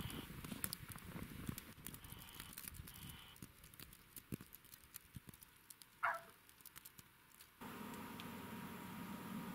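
Footsteps crunching in fresh snow, fading as the walker moves off. A short falling whistle-like call about six seconds in, then a steady faint hum takes over near the end.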